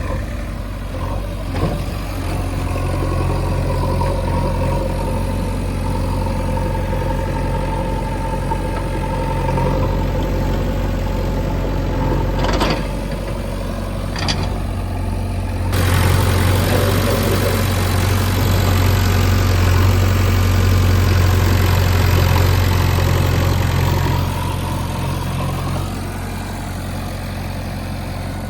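Diesel engine of a JCB 3DX backhoe loader running steadily, with two sharp knocks about halfway through. It then runs louder for about eight seconds before dropping back to its earlier level.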